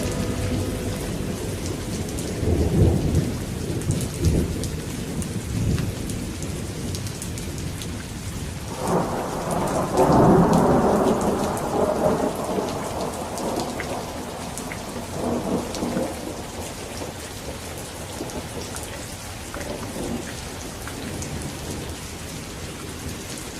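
Steady rain with thunder: a low rumble about two to five seconds in, then a louder, longer rumble starting about nine seconds in that fades away over several seconds. Beneath it the rain runs on, with small drops ticking.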